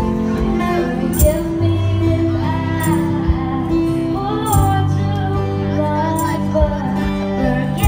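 Live band music: a woman sings into a microphone over sustained electronic keyboard chords and an acoustic guitar. A sharp beat lands about every one and a half to two seconds.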